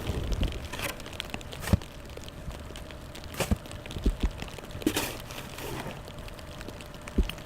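Snow shovel scraping through snow with several sharp knocks of the blade striking the ground, about five in all.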